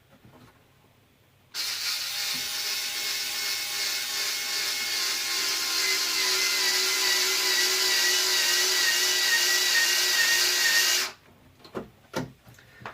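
Cordless power screwdriver driving a screw into plastic: a steady motor whine that runs for about nine seconds, wavers slightly in pitch and cuts off suddenly. A few light clicks follow.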